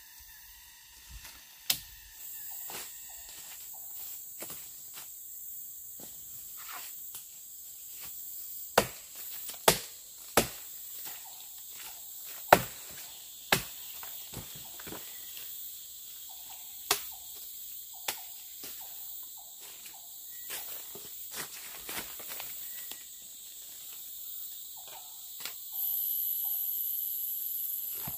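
A machete chopping at a woody vine: about a dozen sharp strokes at uneven intervals. Under the strokes runs a steady high buzz of forest insects, which gets louder near the end.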